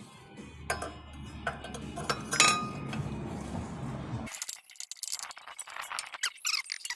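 Light metallic clinks and taps of brake pads, clips and tools being handled, over a steady low hum; a little past halfway the hum drops out and a run of short, high squeaks follows.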